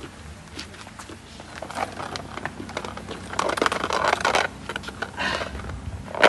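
Rustling and crinkling handling noise with many scattered clicks and scrapes, heaviest in the middle and ending in one sharp click, as a measuring tape is pulled over a marker on asphalt and the phone is moved in close.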